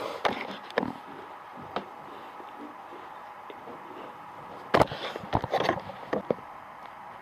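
Scattered sharp knocks and clicks from a person moving right beside a camera set low on the floor, with a burst of several louder knocks about five to six seconds in as he gets up.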